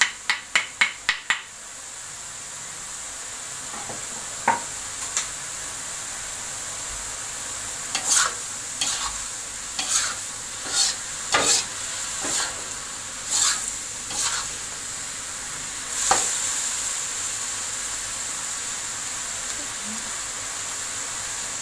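A knife scrapes and taps sliced spring onions off a wooden board into a hot wok in a quick run of taps. Then the stir-fry of straw mushrooms and chillies sizzles steadily, while a metal spatula scrapes and clinks against the wok about once a second for a while.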